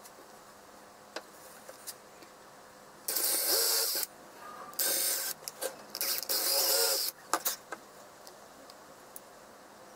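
Cordless drill running in three short bursts of about a second each as it bores into a pine board, its motor pitch shifting under load, followed by a few sharp clicks.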